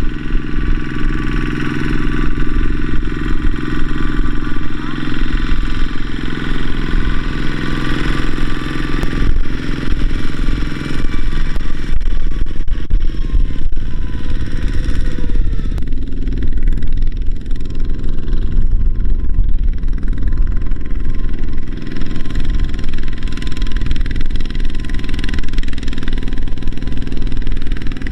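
Single-cylinder diesel engine of a two-wheel walking tractor running steadily under load, pulling a trailer heavy with rice sacks across a soft field. The engine note changes about a third of the way in and again around halfway.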